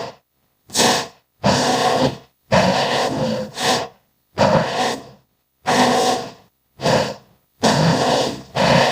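Made-up demon-horse creature sound effects, built from animal and AI-generated horse sounds: a string of about eight short, noisy calls, each a second or less, with dead silence between them.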